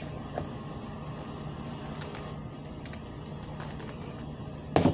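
Scattered light clicks and handling noises over a steady low hum, with one sharp knock near the end.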